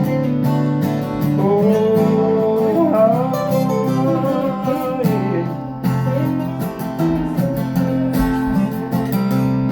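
Acoustic guitar strumming chords while a second instrument plays a gliding melodic lead line over it: an instrumental break between verses of a slow folk ballad.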